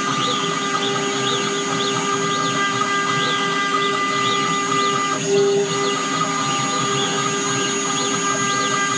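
CNC router at work: its 1.5 kW air-cooled spindle runs steadily with a whine and a hiss, while faint whines rise and fall about once a second as the stepper-driven axes move.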